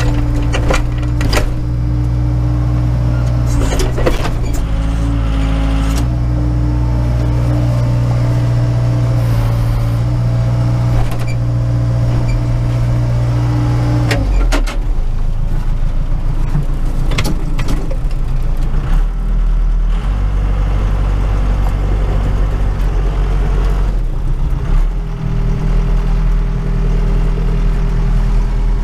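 Case 580 Super K backhoe's diesel engine running steadily, heard from inside the cab, with the engine note dropping lower about halfway through. Several sharp knocks and clanks stand out over the engine along the way.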